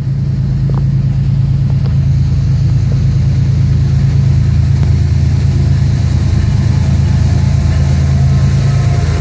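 Engine of an approaching CSX diesel-electric freight locomotive running with a loud, steady low drone.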